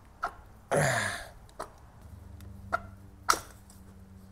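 A single cough about a second in, the loudest sound, among a few light metallic clicks and knocks as the ignition distributor is worked loose and lifted out of the BMW M10 four-cylinder engine.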